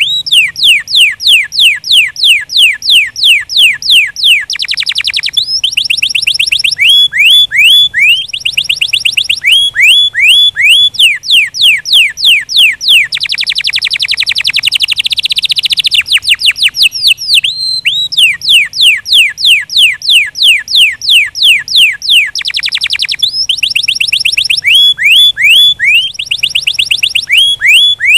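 Domestic canary singing loudly and without a break: long runs of quick, repeated downward-sweeping whistled notes, broken by faster buzzing rolls, the longest of them about halfway through.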